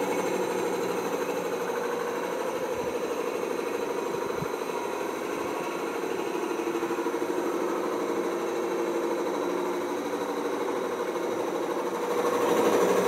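Large lapidary core drill running steadily, its bit cutting down into a hard agate sphere preform. It makes a continuous machine hum with a fast, even pulsing, which grows a little louder near the end.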